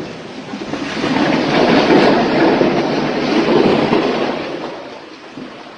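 Hailstones and heavy rain pelting down in a severe hailstorm, a dense rattling noise that swells about a second in and fades toward the end.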